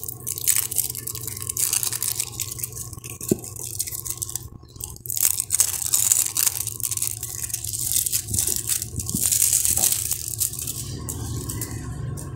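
Clear plastic wrappers crinkling and crackling as plasticine blocks are unwrapped by hand, in uneven spells with short pauses.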